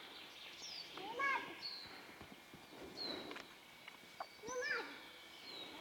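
Faint birdsong: short falling whistled notes about once a second. Twice, a voice calls out briefly in the distance.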